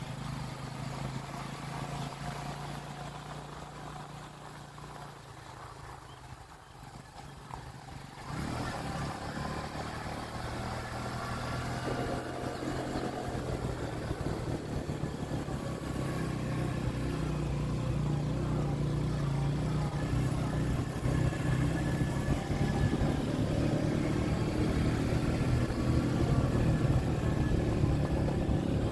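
A motor vehicle's engine running on the move, a steady low hum. About eight seconds in it turns abruptly louder and rougher, and it keeps building gradually toward the end.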